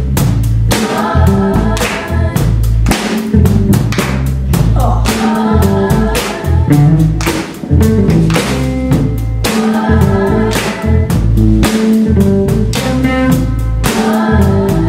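Live rock band playing a song: a drum kit keeps a steady beat under electric bass and guitar, with several voices singing together.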